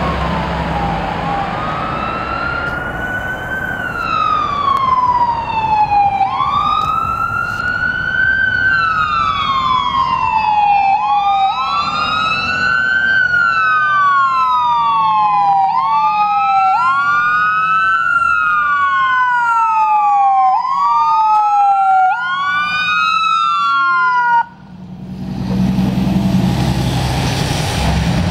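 Fire engine siren wailing, rising and falling about every four to five seconds as the engine approaches, with a second wail overlapping out of step from about halfway. The siren cuts off suddenly near the end, leaving the truck's engine running as it pulls up.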